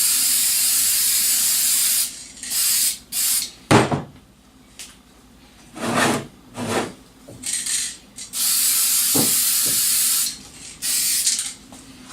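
Aerosol spray can of clear lacquer hissing in bursts. A long hiss stops about two seconds in, several short puffs follow, and another two-second hiss comes near the end. There is one sharp knock about four seconds in.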